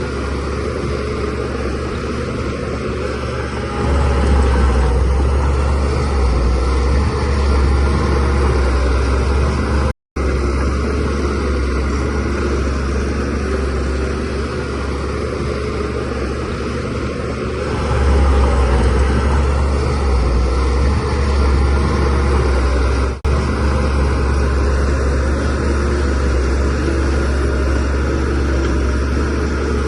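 DH17C3 crawler bulldozer's diesel engine running steadily under load. It grows louder about four seconds in and again a little past halfway. The sound cuts out for an instant about a third of the way through.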